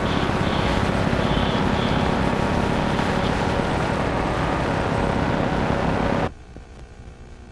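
Loud, steady rushing noise like heavy static or distortion, which cuts off suddenly about six seconds in, leaving a much fainter hiss.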